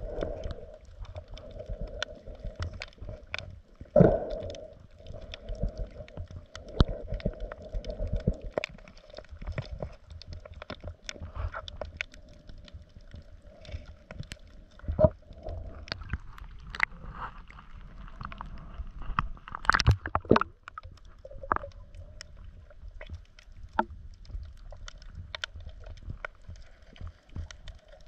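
Water sloshing and gurgling around the camera, with many scattered sharp clicks and knocks. The loudest knocks come about four, fifteen and twenty seconds in.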